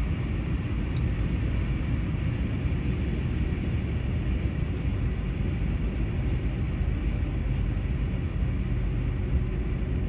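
A vehicle travelling at highway speed, with steady road and engine noise that is heaviest in the low end.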